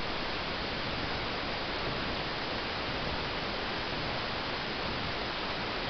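Steady, even hiss-like noise with no change in level and no separate events.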